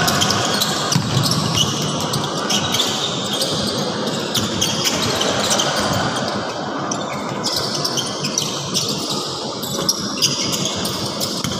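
A basketball bouncing over and over on an indoor court floor as players dribble and drive, mixed with quick footsteps and short high sneaker squeaks. The gym's large hall carries a little echo.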